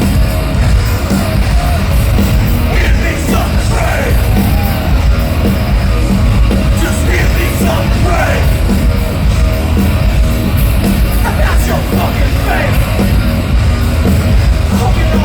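Nu-metal band playing live and loud, with heavy bass and drums under distorted guitars and shouted vocals.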